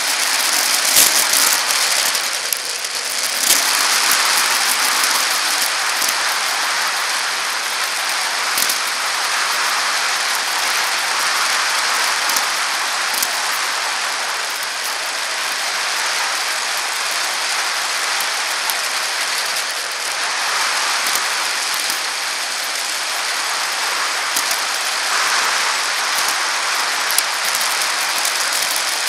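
Steady hiss of a bicycle rolling along a paved path, heard through a camera mounted on the bike: tyre and wind noise, with scattered small clicks and rattles from the bike.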